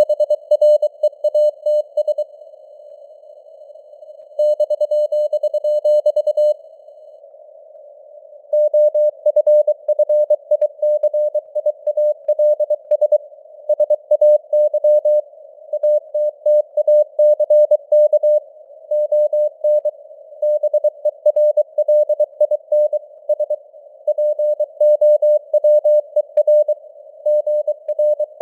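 Morse code sent as a single steady mid-pitched beep keyed on and off in quick dots and dashes at about 23 words per minute, over a narrow band of simulated radio hiss. Twice in the first eight seconds the keying stops for about two seconds, leaving only the hiss.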